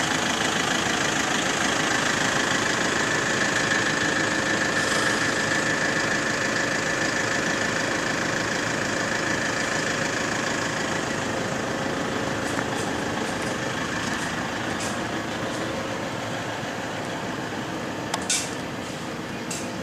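A vehicle's engine running steadily, with a couple of sharp clicks near the end.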